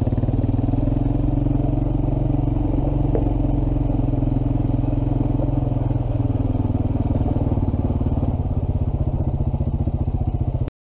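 ATV (quad bike) engine running steadily while riding, a low pulsing note that holds one pitch; the sound cuts off suddenly near the end.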